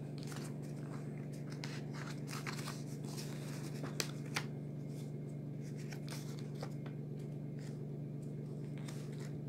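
A sheet of thin A4 printer paper being handled and folded by hand: soft rustles and short crinkles, with two sharper paper clicks about four seconds in, over a steady low hum.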